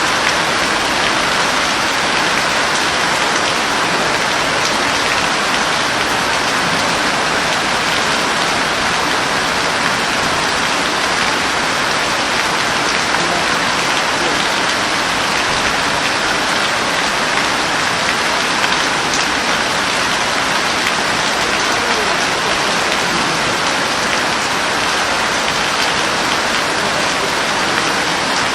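Steady heavy rain falling on a surface, an even dense hiss with faint scattered drop ticks.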